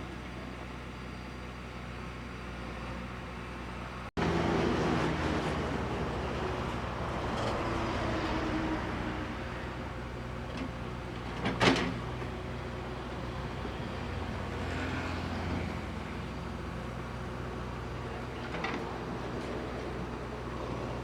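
JCB 3DX backhoe loader's diesel engine running steadily while working. A sharp clank comes about halfway through and a fainter one near the end. The sound drops out briefly a few seconds in and is louder afterwards.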